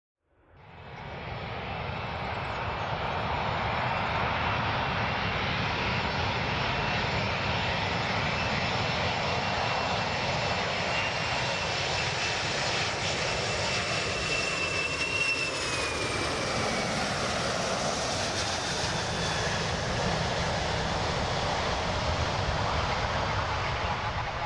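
Boeing 747 four-engine jetliner on final approach: steady jet engine noise that fades in over the first couple of seconds, with a high whine that glides downward about halfway through.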